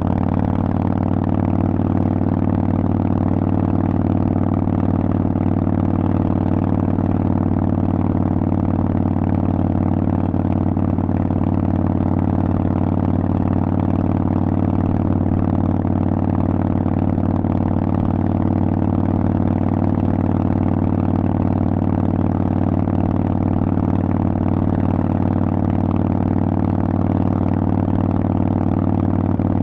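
Harley-Davidson Sportster Forty-Eight 1200's air-cooled 1200 cc V-twin, breathing through loud Vance & Hines aftermarket exhaust pipes, running at a steady engine speed with an unchanging pitch.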